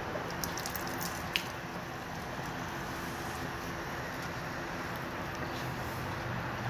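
Warm engine oil draining in a steady stream from the drain-valve hose and the loosened oil filter into a catch pan, with a few light clicks in the first second and a half.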